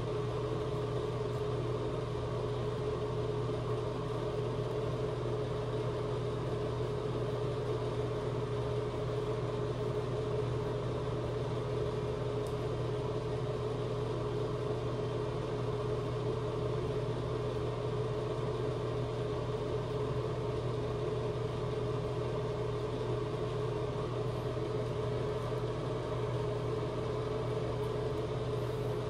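Steady mechanical hum, a low tone with a second, higher tone above it, unchanging in level.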